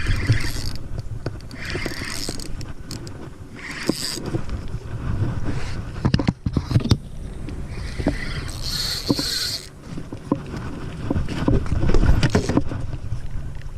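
Rumbling wind-and-water noise on a small fishing skiff, with scattered sharp clicks and knocks and recurring hissy swishes every couple of seconds.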